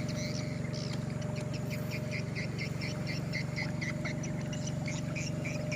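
Motorboat engine running steadily with an even low drone, while short high animal chirps repeat several times a second over it.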